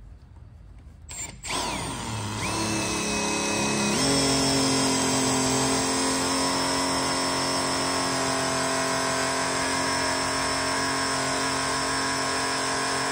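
Cordless drill spinning a bit into a plastic skeleton head to cut material out. The motor spins up about a second and a half in, jumps to a higher speed about four seconds in, then runs steadily.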